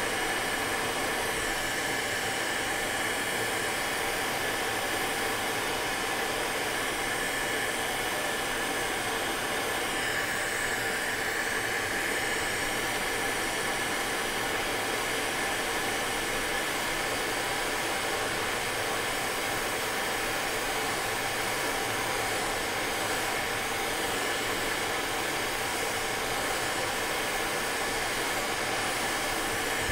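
Hot-air rework station blowing steadily onto a RAM chip on the graphics card's board to melt its solder for removal: an even hiss of air with a faint whine.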